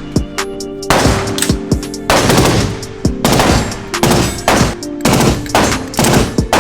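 Short bursts of full-auto fire from a 5.56 AR-15/M16-type machine gun, about one burst a second, with a test bolt carrier group running in it. A background music track with steady tones plays underneath.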